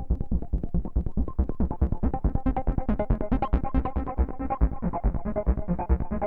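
Moog Matriarch analog synthesizer playing a fast sequenced pattern of short repeated notes, about seven or eight a second, over pulsing bass.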